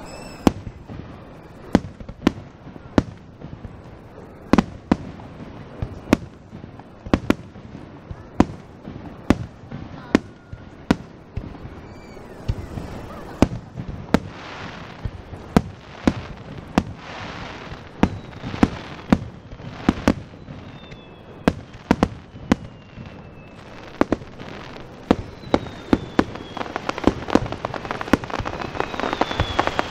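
Aerial fireworks display: a rapid, irregular series of shell bursts, many sharp booms in a row. Faint falling whistles run between them, and a dense crackle builds near the end.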